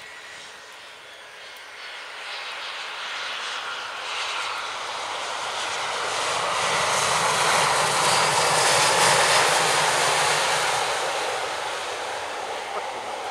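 Airbus A320 jet engines on landing, with the hiss of its wheels rolling through standing water on a wet runway. The sound grows steadily louder as the plane touches down and passes, peaks about eight or nine seconds in, then fades.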